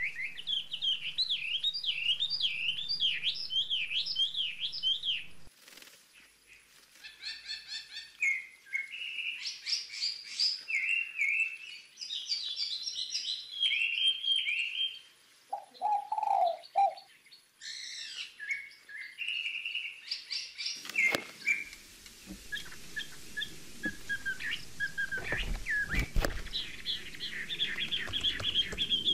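Birds chirping and twittering in quick, high, repeated notes, with a brief lower call about two-thirds of the way in. In the last third a rustling background and a few sharp knocks come in under the chirps.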